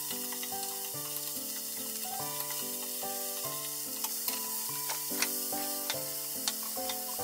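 Red bell pepper and asparagus strips sizzling as they stir-fry in a nonstick frying pan, stirred with a wooden spatula at first. A few light clicks come around the middle.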